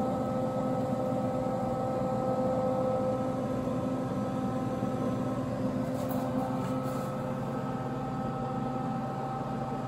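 Steady mechanical hum made up of several constant tones, like a running shop fan or machine. One of the lower tones drops out about seven seconds in.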